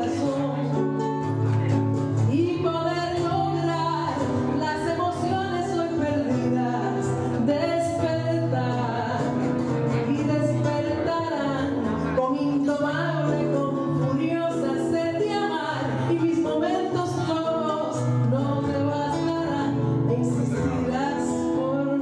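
A woman's voice singing a bolero over a nylon-string acoustic guitar accompaniment, a live voice-and-guitar duo.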